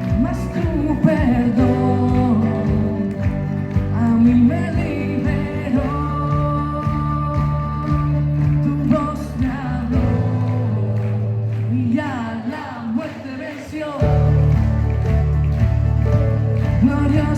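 Live worship band playing on piano, electric and acoustic guitars, bass and drums, with voices singing. The lowest notes drop out about ten seconds in, and the full band comes back about four seconds later.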